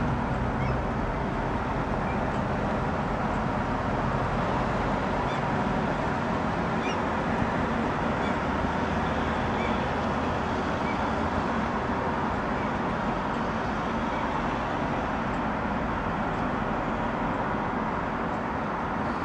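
Steady city street traffic noise, with cars and a van passing. Faint short high chirps come now and then in the first half.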